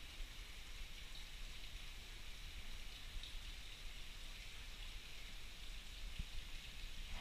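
Light rain falling in a steady hiss, with a low steady rumble beneath it.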